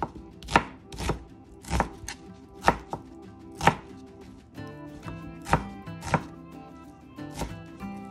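Chef's knife slicing red onion on a plastic cutting board: separate, unhurried knocks of the blade on the board, about one every half second to second, with a short pause about four seconds in.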